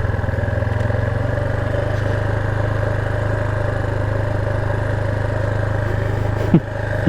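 Motorcycle engine running steadily while riding along at road speed, with a brief dip in the engine note about six and a half seconds in.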